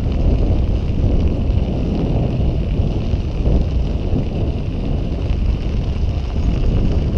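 Steady wind noise buffeting the microphone as the camera rides along on a moving bicycle: a loud, fluttering low rumble.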